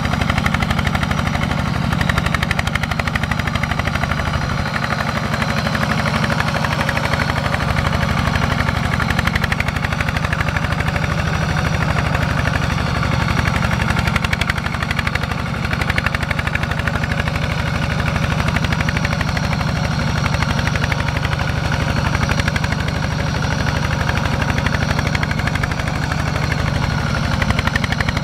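Single-cylinder diesel engine of a two-wheel walking tractor running under load, a rapid, even chugging, as it drives the mud-caked wheels and a loaded trailer through deep mud.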